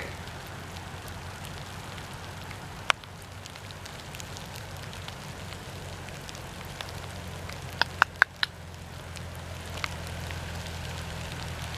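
Steady heavy rain falling, with a single sharp tap about three seconds in and a quick cluster of four taps around eight seconds in.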